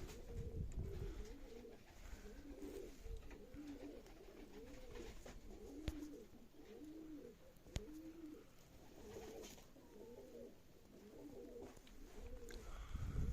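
Domestic pigeons cooing close by, call after call in low arched notes, with two sharp clicks, one about six seconds in and one about eight seconds in.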